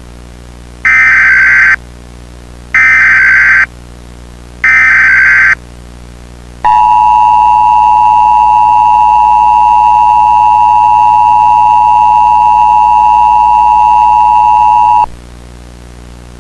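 Emergency Alert System activation: three short bursts of warbling SAME digital header data, each about a second long, then the two-tone EAS attention signal (853 and 960 Hz) held steady for about eight seconds before it cuts off. The signal announces that an emergency alert message follows.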